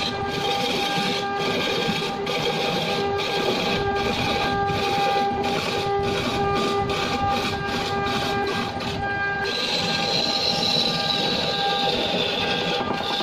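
Wood lathe running while a hand-held turning tool cuts a large spinning wooden blank: a steady machine hum with a constant hiss of shavings being cut. A higher whine joins about nine seconds in and falls slightly in pitch.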